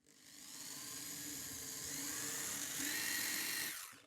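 A small high-speed power tool working a small piece of wood to shape the pedal: a high whine that builds up over the first second, holds with a few slight dips in pitch, and stops just before the end.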